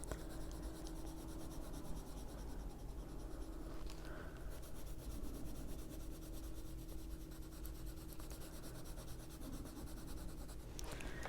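Faint, continuous scratching of a Prismacolor coloured pencil shading on paper, in quick repeated strokes, with a faint steady hum underneath.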